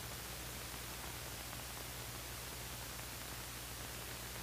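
Steady hiss with a low, even hum underneath: the background noise of an old film's soundtrack between lines of narration.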